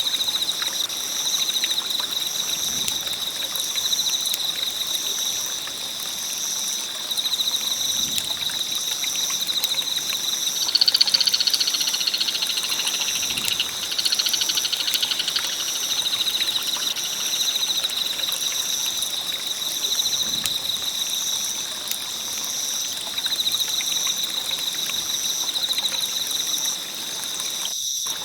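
Campfire burning with a soft hiss and scattered faint crackles, under a steady high chirring chorus of night insects or frogs with a pulsing trill above it. A louder, buzzier call joins in from about 11 to 15 seconds in.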